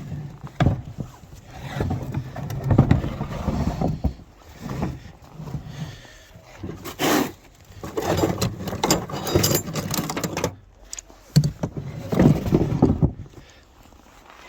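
Footsteps crunching through snow, uneven, with a few sharper, louder crunches partway through.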